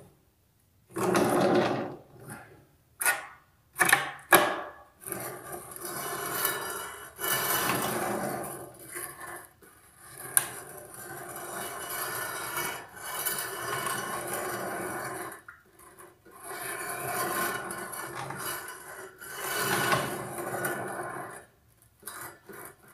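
Rubbing and scraping as a tile saw's sliding table is nudged on its loosened rails and a square is pressed against the table and blade, with a few sharp knocks in the first few seconds. The table is being squared to the blade so the saw cuts straight.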